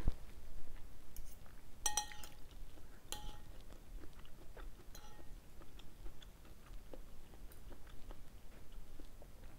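Close-up chewing and mouth sounds of someone eating noodle soup, with a metal spoon and fork clinking against a ceramic bowl. There are three clear clinks, the loudest about two seconds in.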